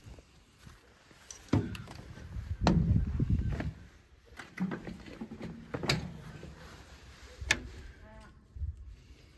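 Knocks and clatter of tire-repair gear being handled and put away: several sharp knocks a second or more apart over low rustling and shuffling.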